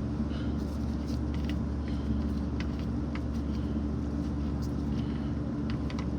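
Steady low hum of an electric shop fan, with faint scattered light clicks of hand tools being handled.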